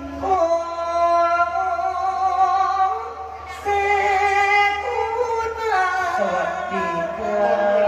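A voice singing long, held notes that slide from pitch to pitch over musical accompaniment.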